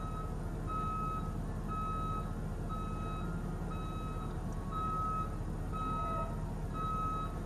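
School bus reversing alarm beeping steadily, one half-second beep about every second, over a low engine rumble.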